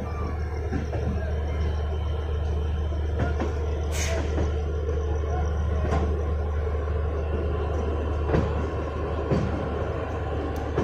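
A passenger train rolling through a station yard: a steady low rumble with irregular sharp clacks of the wheels over rail joints and points, the sharpest about four seconds in.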